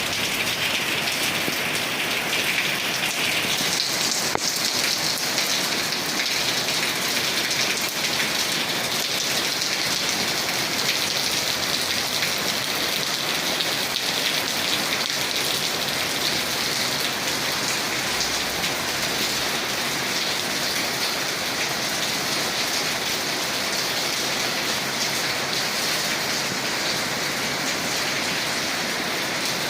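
Steady rain falling, a dense, even hiss of drops that keeps up without a break.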